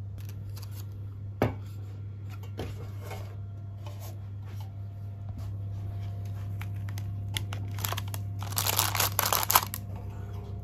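Parchment paper rustling and a metal loaf pan being handled on a wire cooling rack. There is a sharp knock about a second and a half in, and a burst of crinkling and clatter near the end, over a steady low hum.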